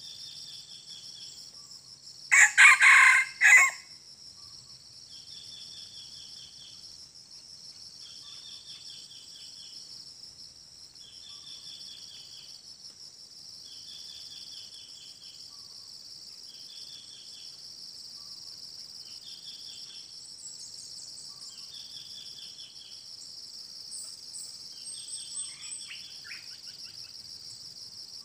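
A junglefowl rooster crows once, a short, loud crow about two seconds in. A steady drone of insects runs throughout, with short chirps repeating every couple of seconds, and a few bird chirps near the end.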